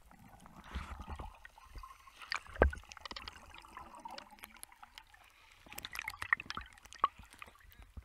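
Water gurgling and sloshing around a camera held just under the surface, with scattered little bubble clicks and one dull knock about two and a half seconds in.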